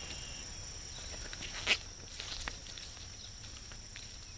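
Footsteps swishing through tall grass, with a sharp rustle about two seconds in, over a steady high drone of insects.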